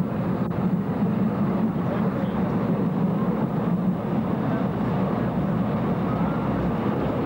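Passenger train running at speed, a steady low rumbling noise heard from inside the carriage.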